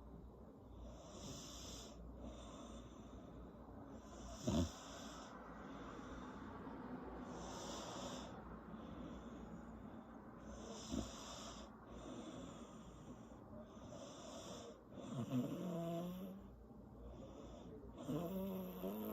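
A woman snoring in her sleep, her lips flapping on the breaths, with a sharp pop about four and a half seconds in and a smaller one later. The snores grow louder and more tonal near the end.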